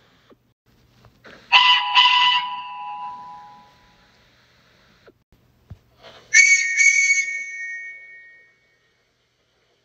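Two steam locomotive whistles, each blown as two short toots: first a lower-pitched pair, then about five seconds later a higher-pitched pair.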